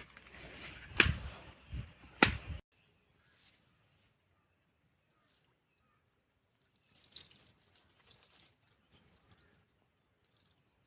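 Loud outdoor rustling and handling noise with two sharp knocks, cut off abruptly after about two and a half seconds to near silence. Faint bird chirps, a few short falling notes, come near the end.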